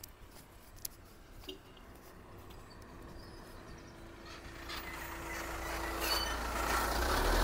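Engine of a large goods truck approaching from behind, a low rumble that grows steadily louder through the second half.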